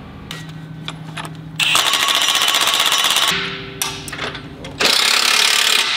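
Impact wrench hammering in two bursts, the first about a second and a half long and the second about a second, running the bolts down snug before they are torqued up in steps.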